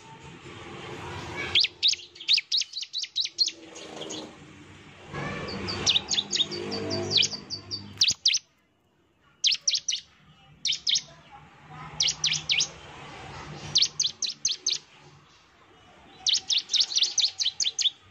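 Bar-winged prinia (ciblek) calling in repeated bursts, each a quick string of sharp, high notes, with short pauses between them.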